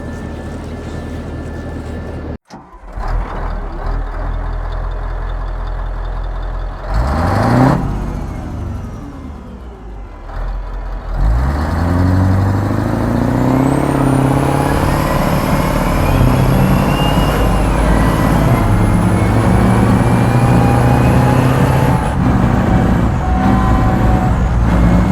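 Combat Vehicle 90 tracked armoured vehicle's diesel engine running. It idles steadily, then after a cut it revs up and falls back. About eleven seconds in it climbs in pitch and holds under load, with a high whine rising above the engine note.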